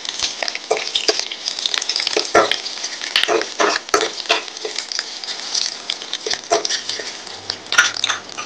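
Hot oil crackling and popping in a stainless-steel kadai as a tempering of mustard seeds, green chilli, ginger and curry leaves fries, with a steel spoon stirring and scraping in the pan. The pops come irregularly, several a second.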